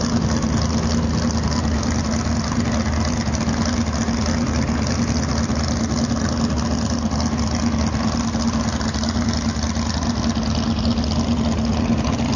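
Big-block Ford V8 of an Eliminator jet boat running steadily at low speed, a deep, even engine note with no change in revs.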